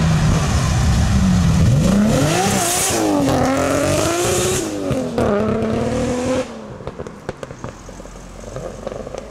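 Nissan Skyline R33 GT-R, tuned to over 800 hp, accelerating hard. The engine's revs climb, drop back twice at gear changes and climb again. The engine sound falls away sharply a little over six seconds in, leaving a quiet background.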